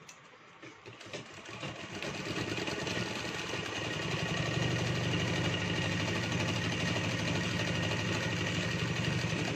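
Sewing machine starting up about a second in and building to a steady, fast running rhythm as it stitches a seam through folded fabric.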